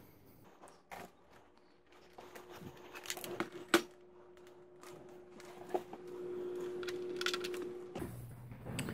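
Faint fast-forwarded handling noise: scattered clicks and knocks, with a steady hum coming in about two seconds in and cutting off suddenly near the end.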